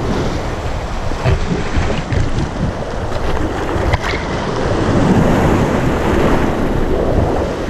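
Whitewater rapids rushing and splashing around an inflatable raft, with wind buffeting the action camera's microphone.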